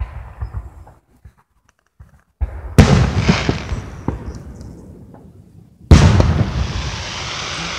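Aerial fireworks bursting: a sharp bang at the start, then a louder boom about three seconds in and another near six seconds, each dying away in a long echoing tail with scattered small pops.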